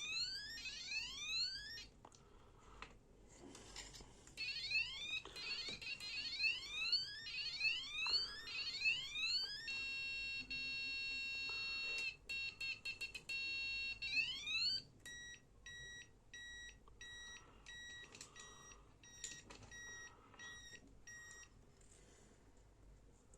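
Electronic piezo bike horn sounding through several siren patterns: quick repeated rising whoops, then a steady high beep that breaks up into stutters, then a run of short, evenly spaced beeps that stops shortly before the end.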